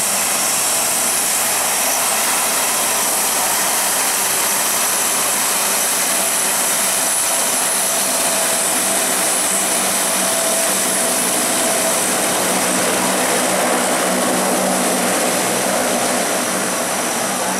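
Four turboprop engines of a C-130 Hercules running as it taxis: a loud, steady propeller drone with a high turbine whine, fading slightly near the end.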